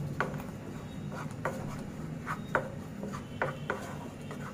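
Wooden spatula stirring thick gravy in a nonstick kadai: scraping strokes with light knocks against the pan, roughly two a second.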